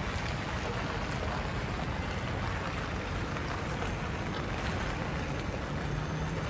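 Steady outdoor background noise, an even hum with no distinct events.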